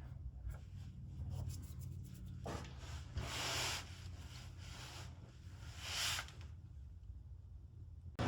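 Faint rubbing and handling noises, a few light clicks and two short scraping rustles, from hands working on the car's wiring, over a steady low hum.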